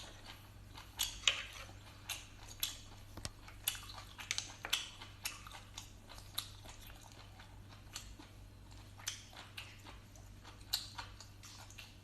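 Close-up chewing of boiled sea snail meat: irregular wet smacks and clicks, a few each second.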